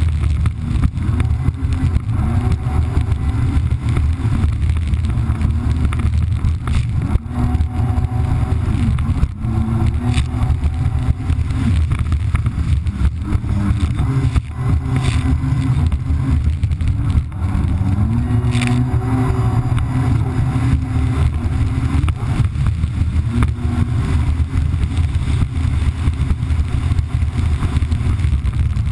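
Kawasaki Ultra 300X jet ski's supercharged four-cylinder engine running at speed, its pitch stepping and gliding up and down with the throttle, over a steady rush of water and wind.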